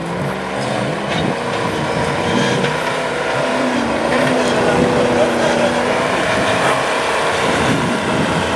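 Land Rover Discovery's engine revving hard and held at high revs as the 4x4 spins its tyres through deep snow. The engine note climbs over the first couple of seconds, then holds steady.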